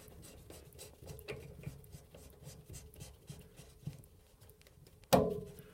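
Plastic coupling ring of a thermostatic radiator valve being turned on its threaded adapter, faint scratchy rubbing with small ticks, then one sudden louder click near the end: the sign of the ring slipping off the thread as it comes tight, so the valve will not seat.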